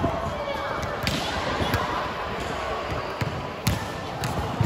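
Chatter of many voices with about five sharp, short smacks of balls struck or bounced on the court, irregularly spaced.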